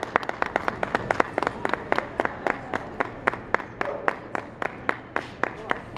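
A few spectators clapping in a steady rhythm, about four claps a second, stopping shortly before the end.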